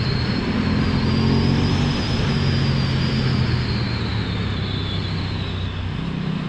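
Motorcycle engine running at a steady, even pitch while riding, with wind rushing past.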